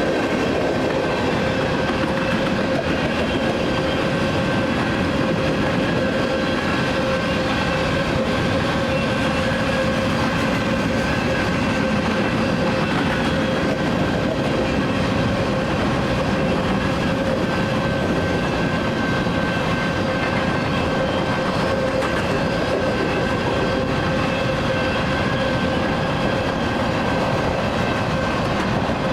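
Freight train of grain cars rolling steadily past on the rails, with a continuous rumble of wheels on track and a steady ringing tone over it.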